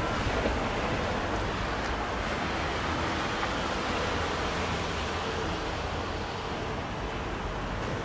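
Steady, even rumble of railway and town ambience at a station yard, with no distinct events.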